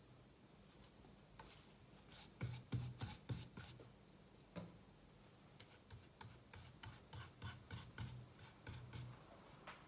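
Paintbrush strokes brushing sealer onto the rough timber of a wooden crate: faint, short rubbing strokes, a quick cluster about two and a half seconds in, then a regular run of about two strokes a second through the second half.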